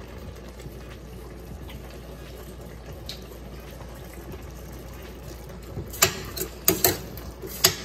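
Thick curried butternut squash simmering in a metal pot with a low, steady bubbling hiss. About six seconds in, a spoon scrapes and knocks against the side of the pot several times as it is stirred.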